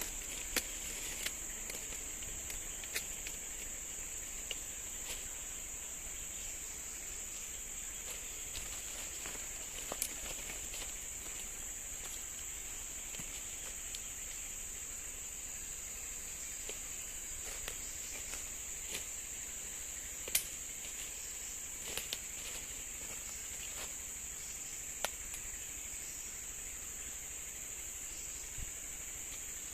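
Steady high-pitched drone of forest insects, broken by scattered sharp clicks and snaps, the loudest about two-thirds of the way through.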